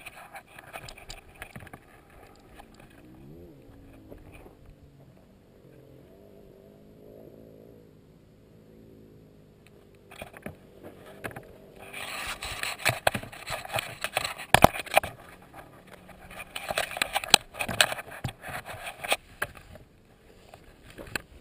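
Dirt bike engine running and changing revs, faint at first. From about halfway a loud rushing, scraping noise with sharp knocks covers it while the bike rides over sand. The noise eases off near the end as the bike stops.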